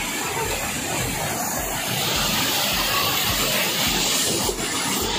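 Water rushing steadily down a narrow concrete check-dam spillway channel, splashing over bathers sitting in the flow.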